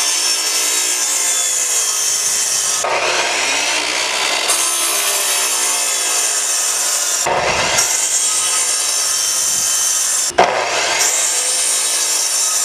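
Sliding compound miter saw running and cutting through 2x4 lumber, several cuts one after another, its motor whine dipping and picking back up between cuts.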